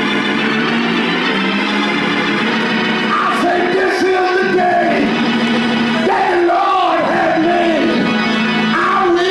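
Organ playing sustained chords. About three seconds in, a raised voice joins it with drawn-out, wavering phrases.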